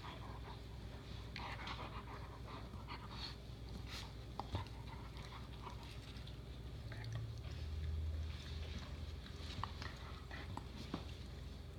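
Dogs panting during play, with scattered light clicks and taps, and a low rumble about seven seconds in.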